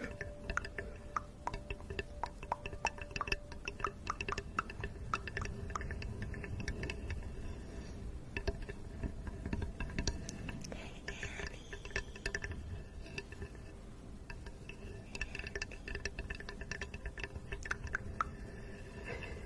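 Close-up, irregular clicks and small taps, several a second, coming in clusters with short lulls, over a faint steady background.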